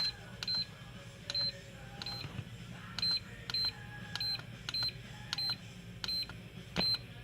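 Hobby LiPo battery charger beeping at each button press while its charge settings are stepped through: about a dozen short, high beeps, one every half to three-quarters of a second, over a steady low hum.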